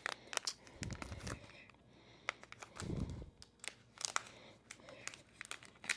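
A small blind bag's wrapper being opened in the hands: scattered crinkling and crackling with some tearing, and a couple of soft low handling bumps about one and three seconds in.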